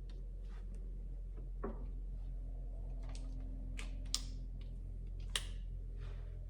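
Light handling noises: a few faint clicks and taps, with two sharper clicks about four and five and a half seconds in, over a steady low hum.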